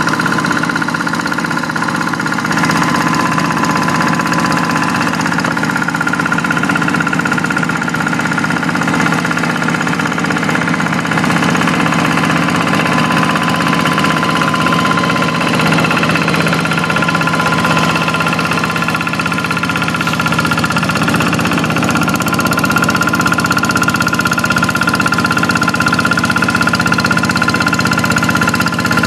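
Quick hand tractor's single-cylinder Kubota diesel engine running steadily while plowing a rice paddy.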